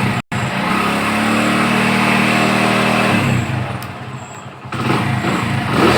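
Hero Honda Splendor+ single-cylinder four-stroke engine running, with a very short break in the sound just after it begins; its note is steady for about three seconds, then drops lower.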